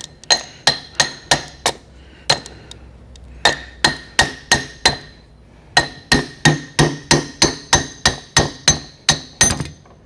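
Hammer striking metal, knocking a differential apart: runs of sharp blows about three a second, each with a short metallic ring, broken by two brief pauses.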